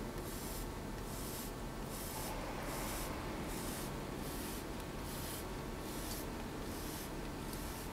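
Hand trigger spray bottle misting water onto a coated alloy wheel in a series of short hissing squirts, a little more than one a second, as a water-beading test of the wheel coating.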